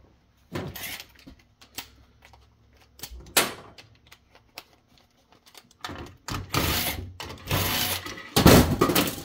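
Light clicks and knocks of metal parts being handled on a steel workbench, with one sharper knock about three and a half seconds in. Then a cordless drill runs in three bursts of about a second each, driving screws out of the UPS's metal outlet panel.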